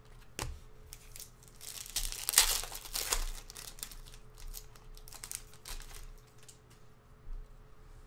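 Foil wrapper of a Panini Prizm basketball card pack crinkling and tearing open, loudest about two and a half seconds in, followed by scattered light clicks of cards being handled.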